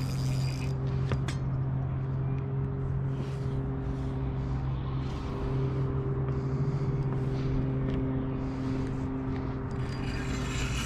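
A motor running with a steady low hum and rumble.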